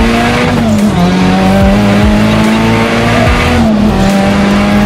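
Nissan Silvia S15's forged, turbocharged SR20 inline-four held at high revs under hard driving, heard from inside the cabin. The engine note stays high and fairly steady, dropping briefly about a second in and again near the end.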